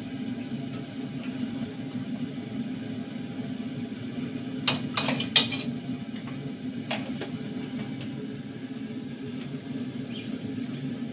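Metal cookware clinking and knocking: a steel pot and its tongs being handled, with a quick cluster of sharp clanks about halfway through and a couple of lighter knocks later, over a steady low hum.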